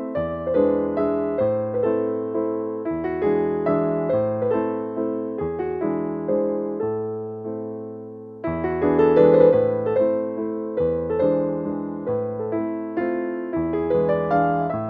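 Background piano music: a gentle melody of single notes that ring and die away, dipping briefly about eight seconds in before picking up again.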